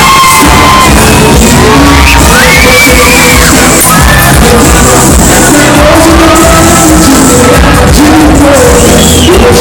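A live band plays loud dance music with a singer's voice carrying the melody over a steady beat, very near full recording level throughout.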